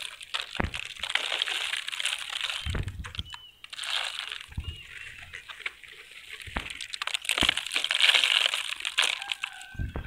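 Coarse salt crunching in a hand and trickling and pattering onto coconut palm fronds, with the stiff fronds rustling and brushing against the hand. A chicken calls near the end.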